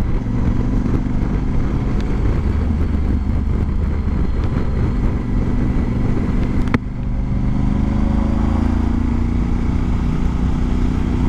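Honda Varadero XL1000V's V-twin engine running steadily under way, with wind noise from riding. About two-thirds of the way in there is a short click and a brief dip, after which the engine note slowly rises.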